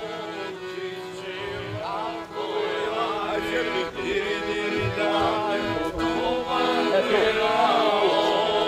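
Men singing a Serbian folk song, accompanied by an accordion's sustained chords.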